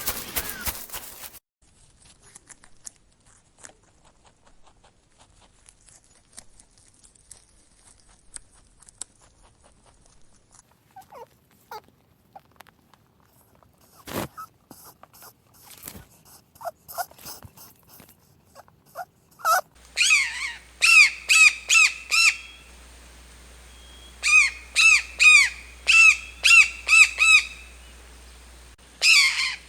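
A bird calling in quick runs of repeated, pitched notes, several calls to a run with short pauses between the runs, loudest in the last third. Before that there are only scattered faint chirps and clicks.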